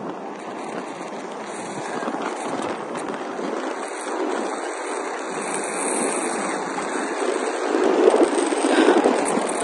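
Steady rushing road and wind noise of a car driving along at speed, growing louder for a moment near the end.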